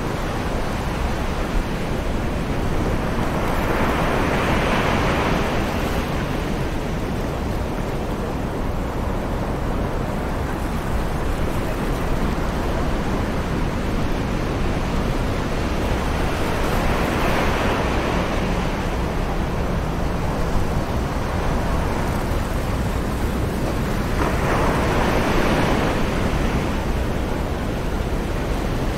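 Distant ocean waves washing onto a sandy beach, with three wave swells rising and falling over a steady low rumble of wind.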